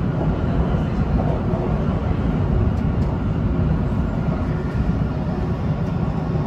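Steady running noise of an MRT train heard from inside as it travels along the track: a continuous low rumble with no sudden changes.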